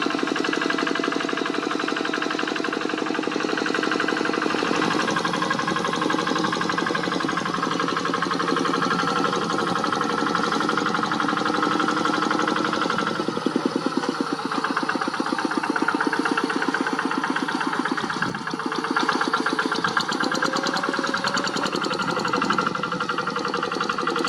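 Kubota single-cylinder diesel engine of a walk-behind hand tractor running steadily with a rapid, even beat, dipping briefly about 18 seconds in.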